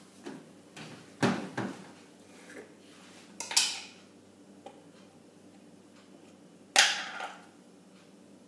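Kitchen utensils and containers clinking and knocking, a handful of separate sharp knocks. The two loudest, about three and a half seconds in and again just before seven seconds, ring briefly like a metal spoon striking a vessel.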